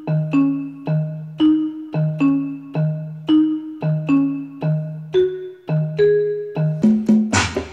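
Background music: a melody of short struck notes over a repeating low note. Percussion joins near the end.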